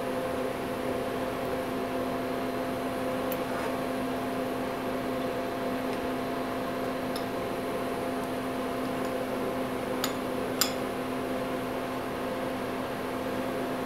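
Steady hum of shop machinery with a few level tones, and two light metallic clicks a little over half a second apart near the end as the brass tube and vise are handled.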